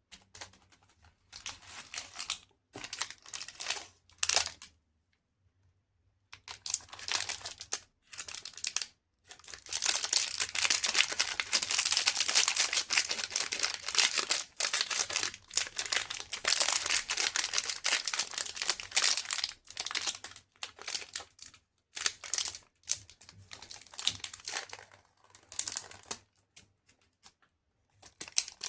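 Chocolate wrapper crinkling and tearing as it is handled and opened. It comes in short bursts with gaps, then a long unbroken stretch of crinkling in the middle, then breaks up into bursts again near the end.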